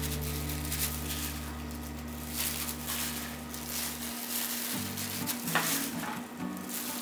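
Marinated raw chicken pieces being picked up and laid in a glass baking dish by a gloved hand: wet, crackly handling noises with one sharper click near the end, over background music with sustained low notes.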